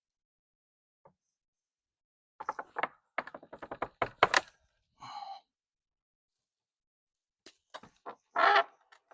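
Light knocks and a quick rattling run of clicks from work on an old wooden corral railing being pulled off its post, with a brief louder rush of noise near the end.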